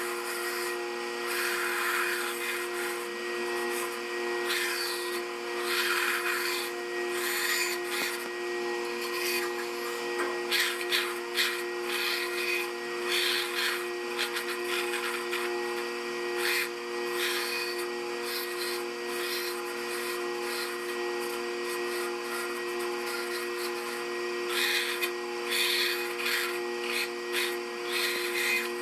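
A power saw running with a steady hum while its blade cuts through wood, the rasp of the cut coming in short, irregular bursts.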